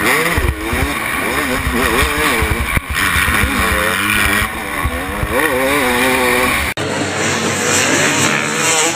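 Dirt bike engine heard from the rider's helmet camera, revving up and down over and over as the rider works the throttle, with heavy low rumble and buffeting on the microphone. About seven seconds in it cuts abruptly to a quieter, thinner sound without the engine up close.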